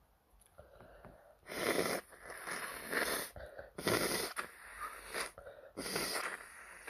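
A person with an itchy, irritated nose making a series of loud, forceful nasal bursts of breath. They start about a second and a half in and come back every second or so.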